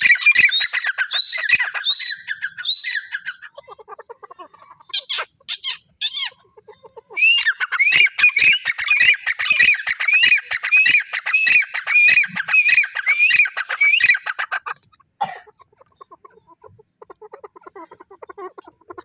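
A pair of Dakhni teetar (grey francolins) calling loudly: a fast run of repeated shrill notes for about three seconds, a few single calls around five seconds in, then a longer run of about seven seconds. Softer, lower clucking fills the pauses and the last few seconds.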